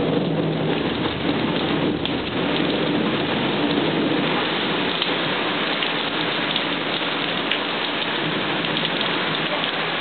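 Steady rain pouring down, with a low rumble of thunder in the first few seconds that fades away.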